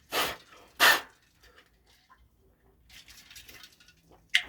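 A person breathing hard: two loud, breathy exhales in the first second, then faint ticks and a sharp click near the end.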